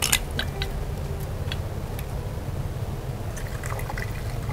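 A few small clicks as a wine bottle is opened, then wine poured into a glass near the end, over a steady low background rumble.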